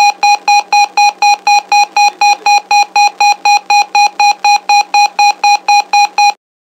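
Airbus A320 evacuation command (EVAC) horn sounding: a rapid train of identical beeps, about four a second, that stops abruptly near the end. It signals that the evacuation command has been activated.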